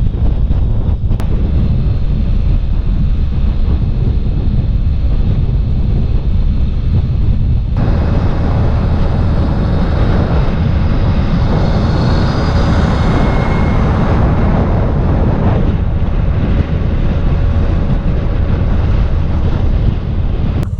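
Heavy wind rumble on the microphone while riding a small vehicle. A vehicle's engine and road noise swell louder from about a third of the way in, then fall back after about eight seconds.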